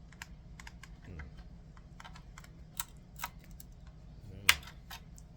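Small irregular clicks and taps as a pressed-together digital electricity meter is pried apart by hand, with one sharp, louder snap about four and a half seconds in.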